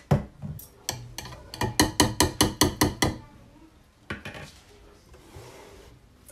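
Immersion blender's shaft tapped against the rim of a plastic measuring jug to shake off the blended mixture. A few scattered knocks, then a fast run of about ten sharp knocks at six or seven a second.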